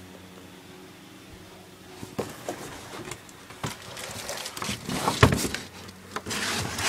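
Rustling and scattered knocks from objects being handled and moved, the loudest knock about five seconds in, after a couple of seconds of quiet room tone with a faint steady hum.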